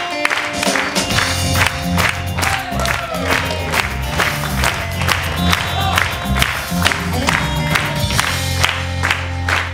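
Upbeat music with hands clapping along to the beat, about two to three claps a second. A bass line comes in about a second in.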